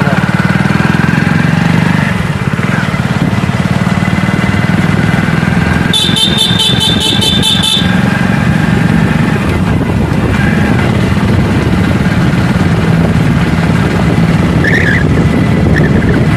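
Motorcycle engine running steadily while the bike rides along. About six seconds in, a high, rapid beeping pulses for about two seconds.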